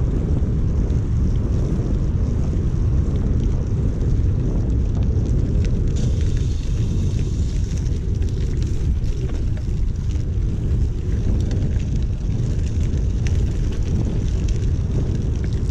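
Wind buffeting the microphone of a handlebar-mounted camera on a moving bicycle, a steady low rumble mixed with tyre noise on the path and small clicks from bumps. A brighter hiss of tyres through a wet patch of path comes about six seconds in.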